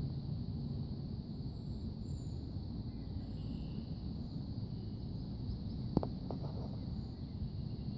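Outdoor evening ambience by a creek: a steady low rumble under a steady high hum, with a few faint bird chirps. A sharp click comes about six seconds in, followed by two softer ones.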